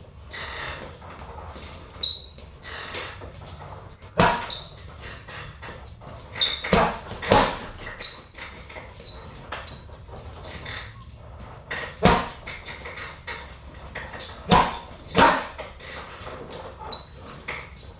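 Punches landing on a hanging heavy bag: irregular sharp hits, several hard ones standing out, with short high chirps between them.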